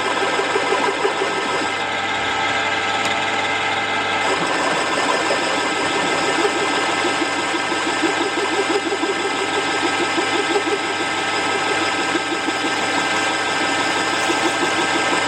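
BVB 25 long-bed lathe running under power with a steady geartrain whine and a fast rhythmic chatter, as it line-bores a steel block.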